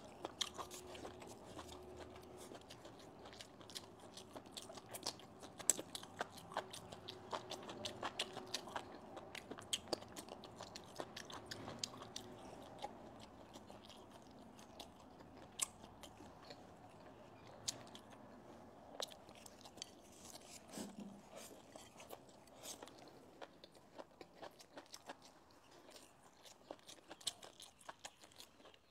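A person chewing crisp stir-fried velvet antler mushrooms with cured pork and chilies: faint, irregular crunches and small clicks of biting and chewing.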